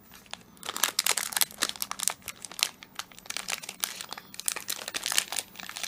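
Plastic blind-bag wrapper crinkling and tearing as it is pulled open by hand, a quick irregular run of sharp crackles starting about half a second in.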